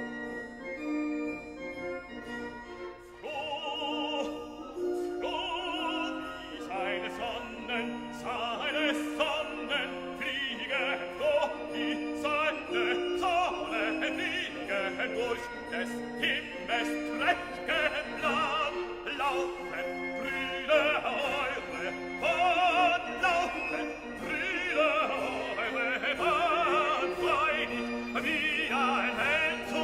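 Background music: operatic singing with vibrato over an orchestral accompaniment. The voice comes in about three seconds in, over held instrumental notes.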